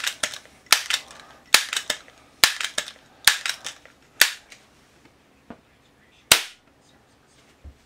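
.177 caliber multi-pump pellet pistol being pumped: about six strokes, each a pair of sharp clacks, a little under one stroke a second. It is then fired once, a single sharp crack about six seconds in.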